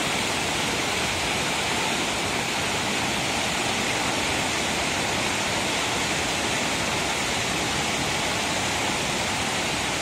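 Steady, even rush of a waterfall and its stream pouring down over sloping rock slabs.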